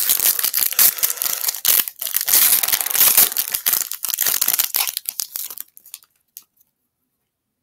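The foil wrapper of a Topps baseball-card pack being torn open and crinkled by hand: dense crackling and ripping that stops about six seconds in.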